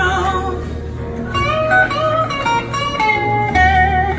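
Electric guitar played through a small amplifier: a bluesy lead line of held, bent notes with vibrato over a steady low bass.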